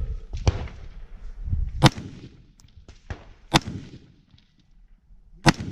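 Four gunshots about a second and a half to two seconds apart, with a fainter crack between the second and third.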